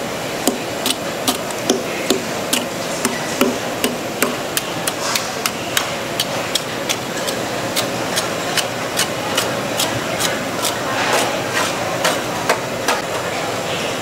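Rhythmic knocking of a utensil striking at a food stall, about two to three sharp strikes a second, over steady background noise.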